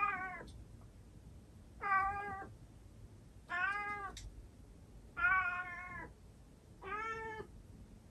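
Calico cat meowing five times, evenly spaced, each call about half a second long. She is a former stray calling at the window to be let outside.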